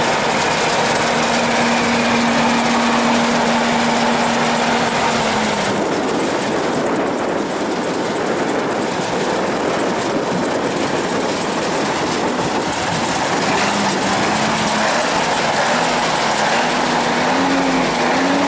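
Diesel tractor engines running close by: a loud, steady mechanical noise. Its engine tone holds steady, drops about five seconds in, and wavers up and down near the end as the revs change.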